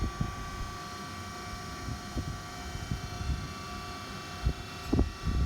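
DoAll D6-1 surface grinder running with its spindle and hydraulic pump on: a steady machine hum with several steady tones, broken by irregular low knocks, two louder ones near the end.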